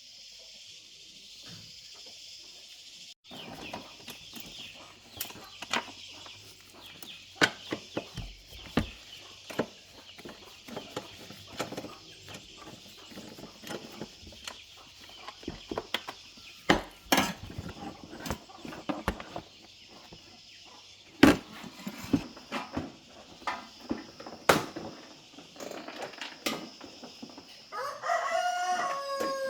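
Irregular sharp taps and knocks over a steady high hiss, with a pitched, falling animal call near the end.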